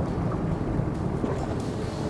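Steady low rumble of a boat at sea, with wind buffeting the microphone.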